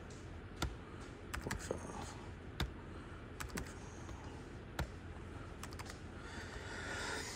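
Computer keyboard keys tapped in scattered single presses and short clusters as numbers are entered, over a faint steady background hiss.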